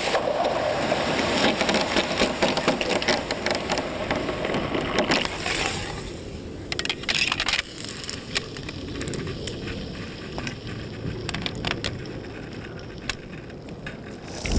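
HK21E machine gun barrel change: a rough hissing noise for about five seconds as the smoking hot barrel is dropped into a tub, then several sharp metallic clicks and clacks as the replacement barrel is handled and latched into the gun.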